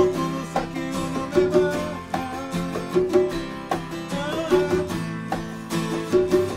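Unplugged acoustic band music carried by plucked string instruments, with a steady run of picked notes and regular accented attacks.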